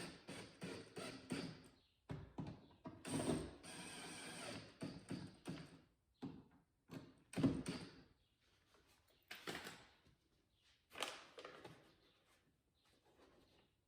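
Clicks, knocks and rattles of metal and plastic parts and hand tools being worked inside an open car door while a door lock actuator is refitted. There are two steady whirring stretches of about a second and a half each, one at the start and one about three seconds in.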